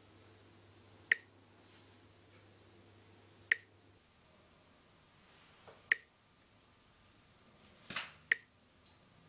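Four sharp ticks at an even pace, about one every two and a half seconds, over quiet room tone, with a short breathy hiss just before the last tick.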